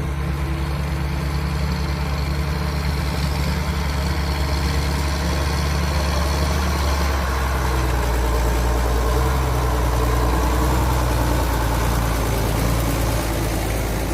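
Tractor engine idling steadily, its note shifting a little about halfway through.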